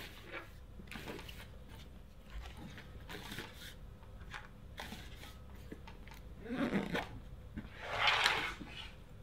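Faint handling sounds of gear being packed into a fabric rucksack: small knocks and rustles, then two louder rustles of the bag's fabric near the end as it is closed.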